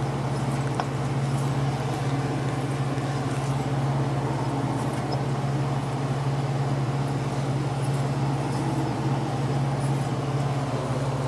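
Steady low hum of a running lathe, with a faint click about a second in.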